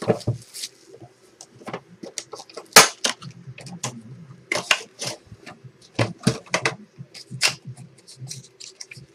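A basketball card box and its pack wrappers being opened and handled: irregular crinkling, rustling and tearing with scattered sharp clicks, the loudest about 3 s in.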